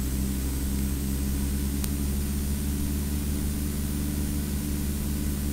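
Steady low drone of a vehicle engine running at an even speed, with road and wind noise over it and a faint thin high whine.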